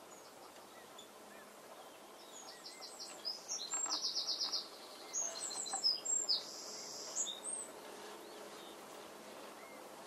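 A small songbird singing: a fast run of repeated high notes starting about three seconds in, then a second phrase of quick trills and a buzzy note, over faint open-air background.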